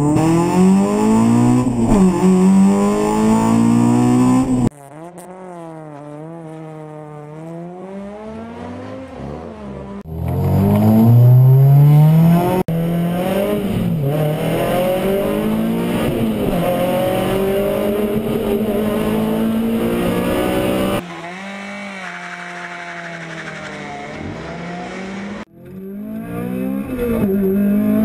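Honda VTEC four-cylinder engines heard from inside race and rally cars, revving hard and climbing in pitch through the gears, the pitch falling back at each upshift. Several clips are cut together, so the engine sound changes abruptly, going quieter for a few seconds about a fifth of the way in and again near the end.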